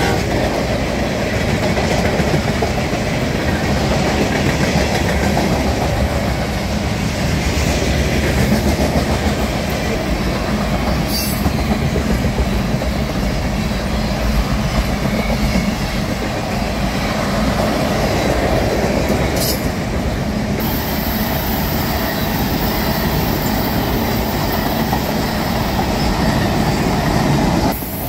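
Freight train cars rolling past at close range: a steady rumble of wheels on rail with a clickety-clack of wheels over the rail joints.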